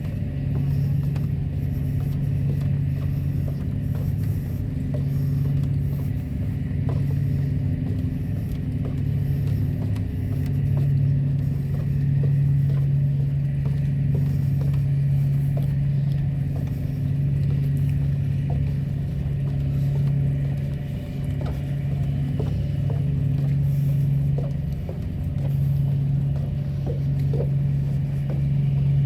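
A steady low mechanical drone that swells and fades a little, with faint scattered clicks.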